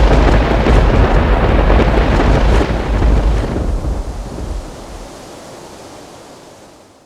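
Loud rushing, rumbling noise, strongest for the first few seconds and then slowly fading away.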